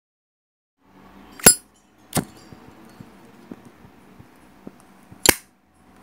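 Zippo lighter's hinged metal lid being clicked open and snapped shut: three sharp metallic clicks with a brief ring, about a second and a half in, about two seconds in and near the end, the first the loudest, with faint ticking between.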